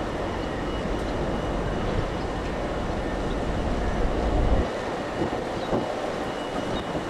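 Wind buffeting the microphone in a low rumble that drops away suddenly about four and a half seconds in, over a steady rushing background.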